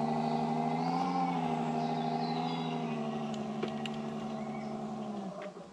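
RC scale crawler's electric motor and gear drive whining steadily under load as it climbs, fading as it pulls away and stopping about five seconds in.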